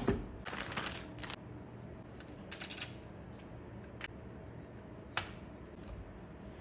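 Handling noises: short bursts of rustling and a few sharp clicks, like parts or packaging being handled.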